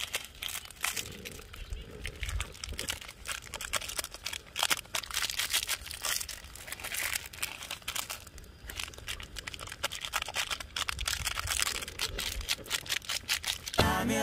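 Plastic instant-ramen seasoning packets crinkling and tearing as they are opened and shaken out over the pot, a run of many small crackles.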